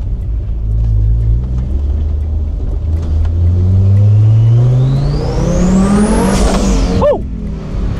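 Tuned Audi S6's turbocharged inline five-cylinder pulling away in first gear. The engine note climbs steadily in pitch with a turbo whistle rising above it. About six seconds in the throttle lifts: the whistle falls away and a short falling chirp follows.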